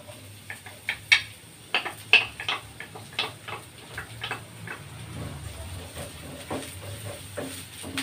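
A utensil scraping and tapping chopped onions out of a small bowl into a frying pan of sautéing garlic: quick, irregular clicks and knocks against the bowl and pan, over a low steady hum.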